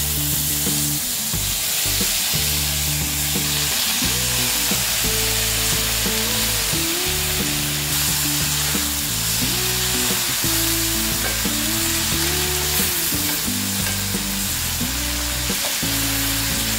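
Soaked dried red chillies sizzling steadily in hot oil in a steel pan with lentils, onion and garlic, stirred with a wooden spatula.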